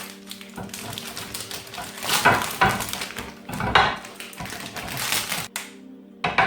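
Rapid clicking and tapping from kitchen items being handled on a worktop, with a few louder bursts of rustling and clatter, over a faint steady hum.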